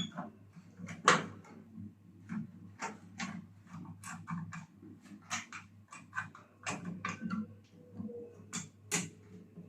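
Irregular clicks and light knocks of tools and parts being handled while working inside a microwave oven, the loudest knock about a second in.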